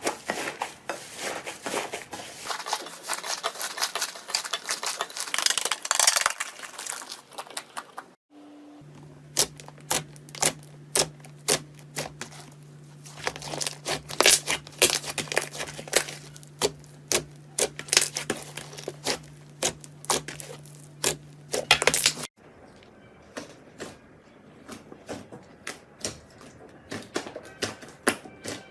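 Slime being squished and poked by hand, giving dense crackling with sharp popping clicks. It comes in three stretches broken by two abrupt cuts, with a low steady hum under the middle stretch.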